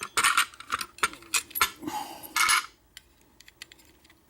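Small metal parts of a disassembled Schlage deadbolt clinking as they are handled and dropped into a metal pinning tray: several sharp clinks in the first two and a half seconds, then only faint ticks.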